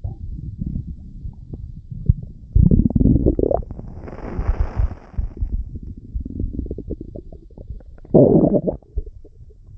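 Stomach rumbling: a continuous low gurgling churn, with a louder rising gurgle about two and a half seconds in that turns into a hiss, and another short loud gurgle near the end.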